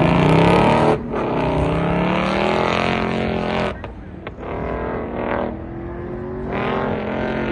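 Ford Mustang engine accelerating hard away from an autocross start, revs climbing in pulls. The note cuts off sharply about a second in and again near four seconds, grows quieter as the car moves away, and rises once more near the end.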